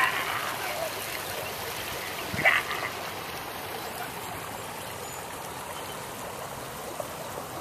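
Steady rush of river water spilling over a broken concrete slab and old pilings. Two brief louder sounds stand out, one at the very start and one about two and a half seconds in.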